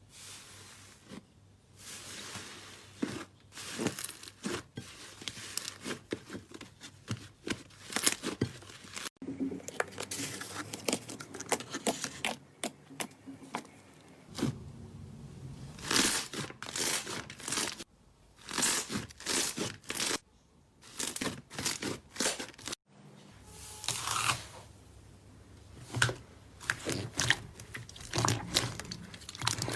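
Hands squeezing, stretching and pressing slime: a dense run of crackles, pops and squelches. The texture changes abruptly a few times.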